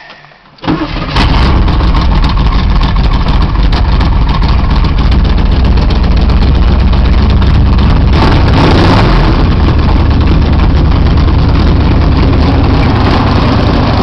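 1973 Camaro's 400 cu in Chevy small-block V8, cammed, with dual exhaust, starting about a second in and then running steadily and loudly.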